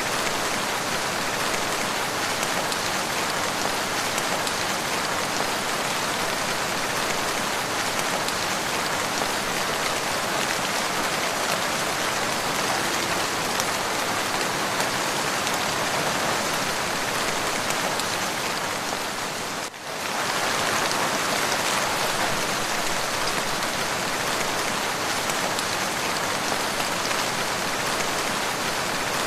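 Steady, continuous rain falling, an even hiss with a brief dip in level about two-thirds of the way in.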